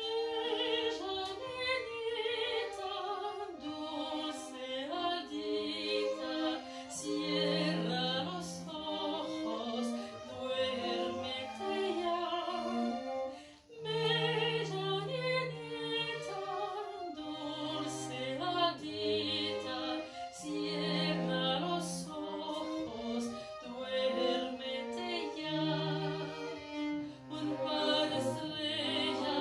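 String ensemble of violins and cello playing a classical piece with vibrato and moving bass notes. There is a brief break about halfway through before the playing resumes.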